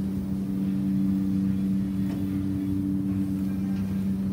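Steady machine hum from running shop equipment, with a second, higher tone that drops out near the end.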